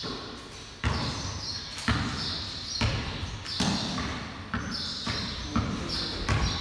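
Basketball being dribbled on a concrete floor, about one bounce a second, each bounce echoing in the large hall.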